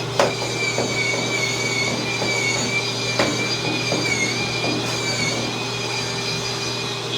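Electric spin scrubber's motor whining steadily as the spinning brush head scrubs, its pitch wavering slightly as the pressure changes, with two brief knocks of the head against the surface.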